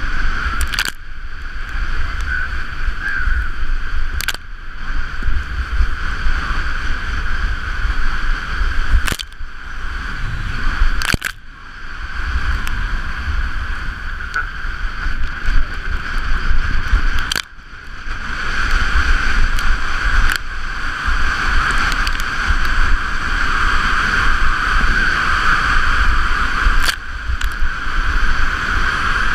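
Wind rushing over the microphone of a camera carried on a sled speeding downhill, mixed with the sled sliding and scraping over the snow: a loud, steady rush with a deep rumble and several brief cutouts.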